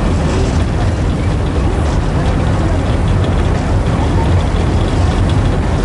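Steady low rumble of a water taxi under way, heard from its open deck, with wind buffeting the microphone.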